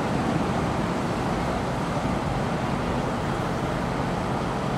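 Steady low vehicle rumble with traffic noise.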